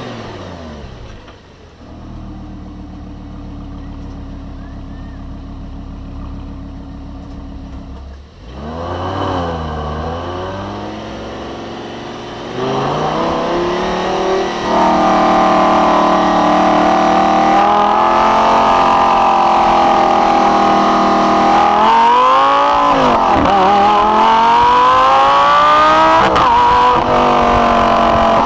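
Lamborghini Gallardo LP560-4's V10 engine: its note falls at the start and runs quieter and steady for several seconds, with a brief dip and rise of revs around nine seconds in. From about twelve seconds it turns loud under acceleration, pitch climbing slowly, dipping and climbing again twice near the end.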